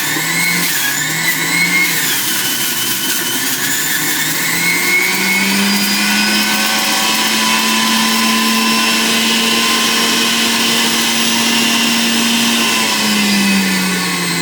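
Breville electric juicer motor running at high speed with a whine. Its pitch wavers for the first few seconds as fruit is pushed in, climbs and holds steady, then drops near the end.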